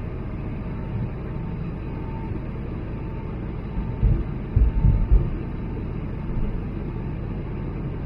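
Cabin noise of an Airbus A220-100 taxiing: a steady low rumble from its Pratt & Whitney PW1500G geared turbofans and the rolling airframe, with a faint steady hum. A few heavy low bumps come about four to five seconds in.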